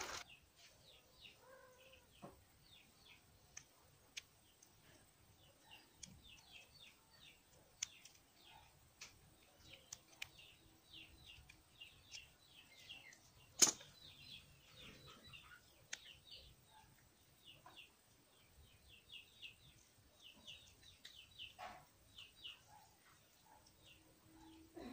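Birds chirping faintly in the background, a steady run of short, quick falling chirps. Now and then a faint click of plastic being handled, with one sharp click about 14 seconds in as the scissor point is worked into a plastic bottle cap.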